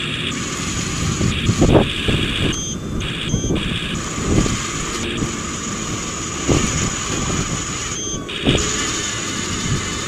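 Small electric drive motors of an RC toy bulldozer whining in on-and-off spurts as it is driven, over a steady gear and track rattle while it pushes loose dirt, with a few brief louder surges.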